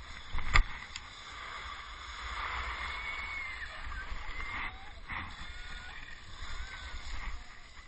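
Wind buffeting a helmet-mounted camera's microphone and skis hissing on packed snow during a downhill run, with one sharp knock about half a second in.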